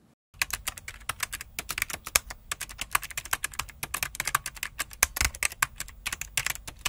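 Typing sound effect: rapid, uneven clicks of keys being struck, many per second.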